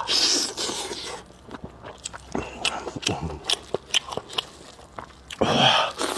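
A person eating close to the microphone: chewing with wet mouth clicks, and two louder noisy bursts, one at the start and one about five and a half seconds in.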